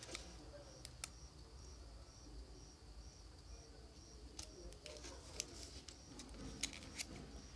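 A cricket chirping steadily in short high chirps about twice a second, over a low hum. Now and then there are small sharp clicks and taps from handling the battery and soldering iron on the bench.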